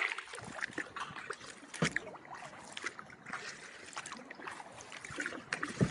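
Kayak paddle working the calm river: water trickling and dripping off the blades between strokes, with small splashes and light ticks. One tick a little under two seconds in stands out.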